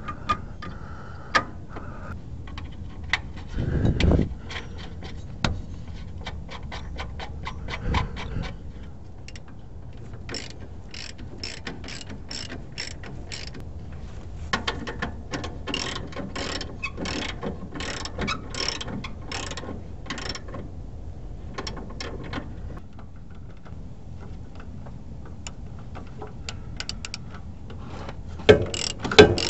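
Hand ratchet wrench clicking in long quick runs while tightening a shock absorber's mounting bolt, with a dull knock about four seconds in and another about eight seconds in.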